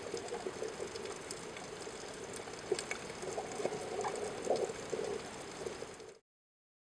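Water bubbling and trickling with scattered sharp clicks, cutting off suddenly about six seconds in.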